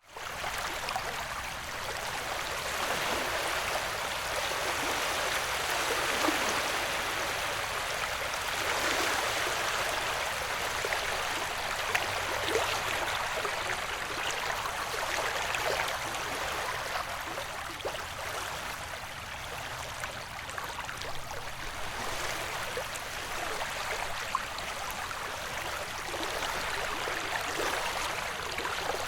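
Ocean-wave white noise: a steady rush of water with slow, gentle swells. It comes up quickly out of a brief silent gap at the very start.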